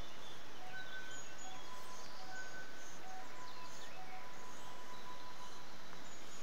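Steady rush of flowing river water, with faint short high-pitched chirps and tones over it.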